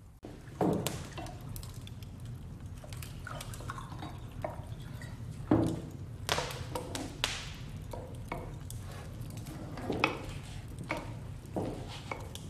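Kitchen work sounds: scattered knocks and clinks of a knife cutting on a wooden board and of crockery and glassware set down on a wooden table, over a low steady rumble. The loudest knocks come about half a second in, around five and a half seconds in, and around ten seconds in.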